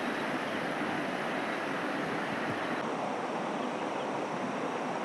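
River water rushing over stones, a steady even rush.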